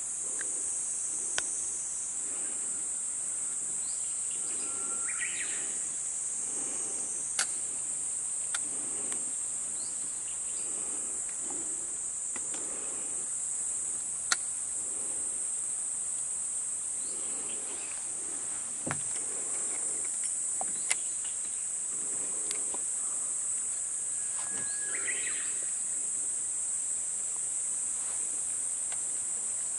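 Steady high-pitched chorus of insects, with a bird calling twice, each time a held note followed by a quick flourish. A few light clicks sound now and then.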